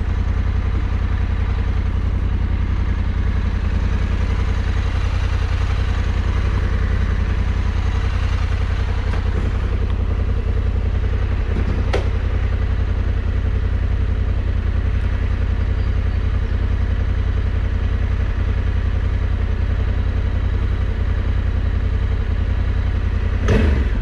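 Adventure motorcycle engine running steadily at low speed on a muddy dirt road, with a sharp click about halfway through and a short louder noise just before the end.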